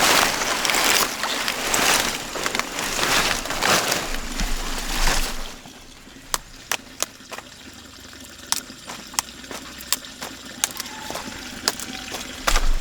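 Water splashing and sloshing in repeated surges for about five seconds, then a quieter stretch with scattered sharp clicks.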